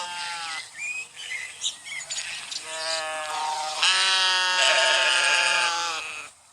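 Sheep bleating: the end of one bleat at the start, then a shorter bleat about two and a half seconds in and a long one from about four seconds in. A few faint chirps come in between.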